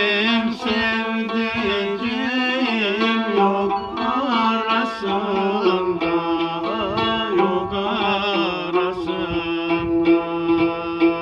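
A Turkish folk song (türkü) sung by a man's voice with melismatic ornaments. He is accompanied by a plucked, banjo-bodied long-necked lute holding steady low notes under the melody.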